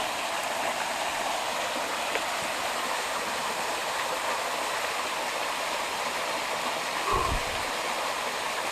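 Waterfall and stream water rushing steadily, with a brief low thump about seven seconds in.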